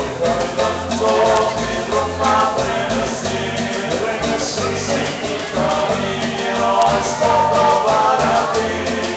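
Live Latin dance band playing: button accordion, a singer, drums, congas and bass guitar, with the bass thumping about once a second under the melody. Loud, filmed on a phone from the crowd.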